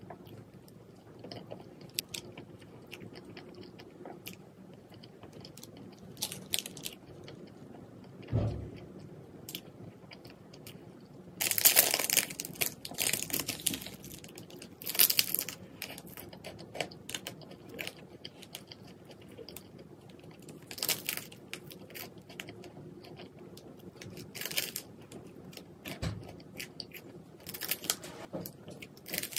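Close-up eating sounds: chewing and biting with scattered crunches and clicks, and a few louder crackling stretches around the middle.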